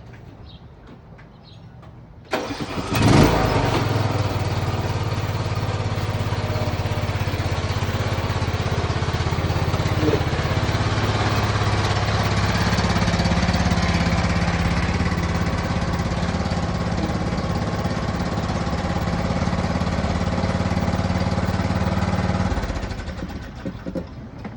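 John Deere L108 riding mower's single-cylinder engine cranked and catching about three seconds in, then running steadily for some twenty seconds before stopping near the end.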